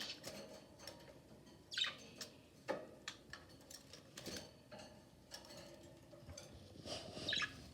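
Pet budgerigars making soft, scattered chirps, mixed with brief clicks and taps, a few seconds apart.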